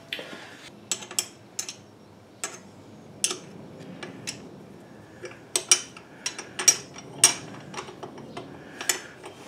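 Irregular sharp metal clinks and knocks, more than a dozen, from a steel motorcycle skid plate and its mounting hardware being handled and fitted. They come thickest in the second half.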